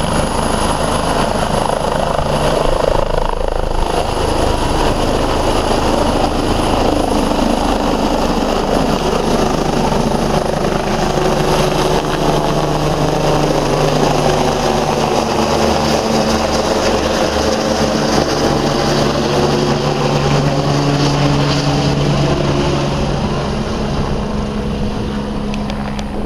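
Sécurité Civile Eurocopter EC145 rescue helicopter lifting off, passing overhead and climbing away: rotor chop over a steady high turbine whine. It is loud throughout and fades a little near the end as it moves off.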